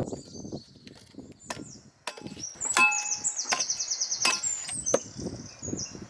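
Hatchet chopping a dry branch against a tree trunk: about six sharp wooden chops, roughly one every half second to second. A bird sings high in the background through the middle.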